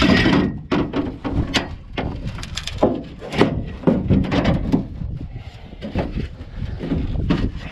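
Long metal bars being handled inside an aluminum boat, clanking, knocking and scraping against the hull and each other in an irregular run of sharp knocks.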